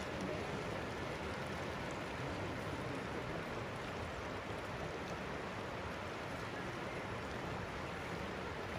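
Steady rushing of flowing water, an even wash of noise that does not change.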